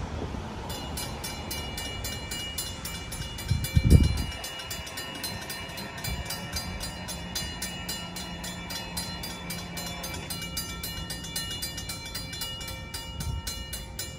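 Railroad grade-crossing warning bells ringing in rapid, even strikes as the crossing activates and the gate arms come down, the sign of an approaching train. The bells start just under a second in. About four seconds in there is a brief, loud low thump.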